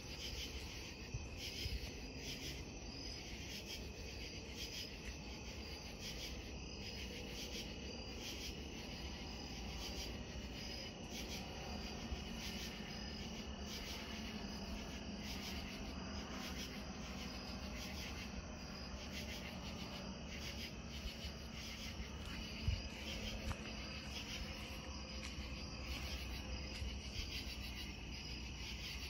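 Crickets and other night insects chirring steadily, in a high, evenly pulsing chorus.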